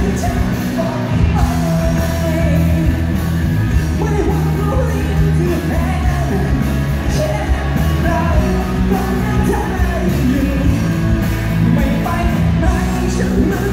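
Live rock band playing through a large PA system with a male vocalist singing, heard from within the crowd in a big hall.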